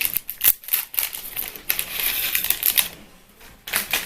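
A plastic sachet of crispy kremes topping crinkling and crackling in the hands as it is handled and opened, in a dense run of small clicks that eases off near the end before one more burst.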